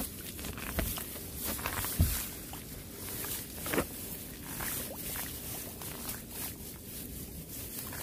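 A hand squelching and splashing in the shallow water and mud of a flooded rice paddy, pulling up weeds and stirring the mud at their roots. A few louder wet knocks come at about one, two and nearly four seconds in.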